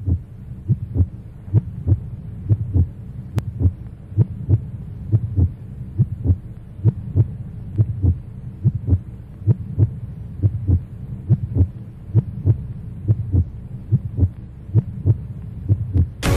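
Heartbeat sound effect: a steady run of low thumps, roughly two a second, over a low hum, with music cutting in suddenly at the very end.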